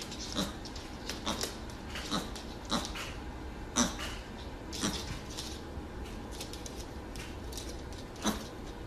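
Mini pig giving short grunts, about seven over several seconds with a pause in the middle, while its hooves tap lightly on the hard floor.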